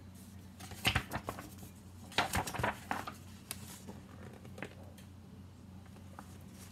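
Picture book being opened and its pages turned by hand: paper rustling and handling clicks in two clusters, about a second in and again around two to three seconds in, with a low steady hum underneath.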